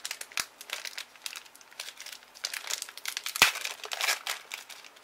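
Foil wrapper of a trading-card booster pack crinkling in the hands as it is pulled and torn open, a string of quick crackling rustles that is loudest a little after three seconds in.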